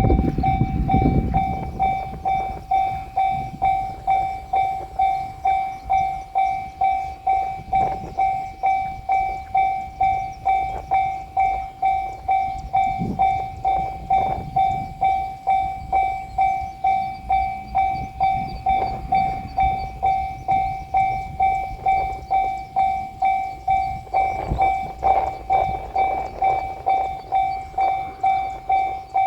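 Level-crossing warning bell ringing in an even, unbroken rhythm, about three dings every two seconds. A passing 7200 series electric train's rumble dies away in the first second, and more train noise rises near the end.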